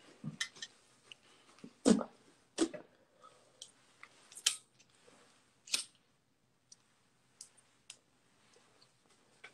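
Scattered soft clicks and a few sharper knocks with quiet gaps between, the loudest about two seconds in: handling noise from a handheld phone being moved about.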